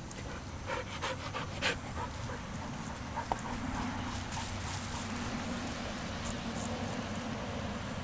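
A dog panting, a quick run of breaths in the first two seconds, over a steady low hum.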